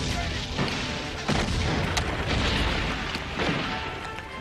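Battle sounds of artillery booms and gunfire: a continuous low rumble with several sharp shots, the sharpest about two seconds in.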